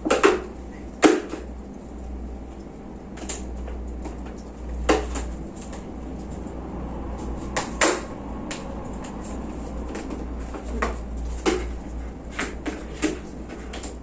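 Scattered knocks and clicks of plastic toy hairdressing-set pieces being handled and set down on a table. The two loudest knocks come right at the start, about a second apart, with lighter clicks every second or two after.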